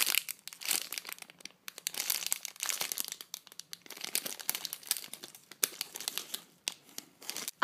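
Clear plastic bag crinkling and crackling irregularly as hands squeeze and turn a bagged foam squishy toy.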